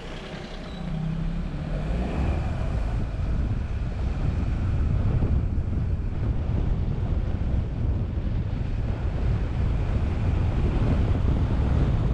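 Wind buffeting a car-mounted microphone, over a low rumble of road and engine noise while driving. The noise grows louder about a second and a half in and then holds steady.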